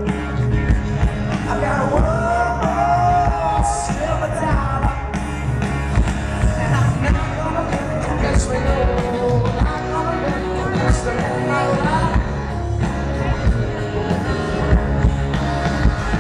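Live rock band playing through a PA, heard from out in the crowd: drums, bass and electric guitars under a singer, with a few cymbal crashes.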